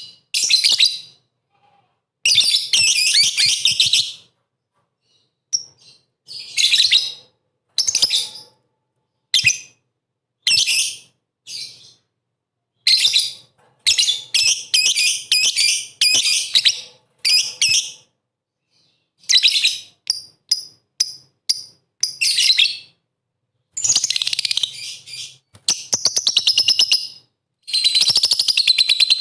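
A lovebird in full song, chattering in shrill, rapid bursts of high chirps, each lasting up to a couple of seconds with short pauses between. Near the end it breaks into a long unbroken run of fast chatter.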